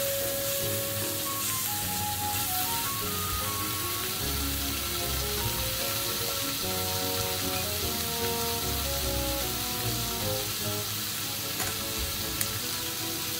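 Slices of meat and green peppers sizzling steadily on a tabletop grill plate, with light background music playing over it.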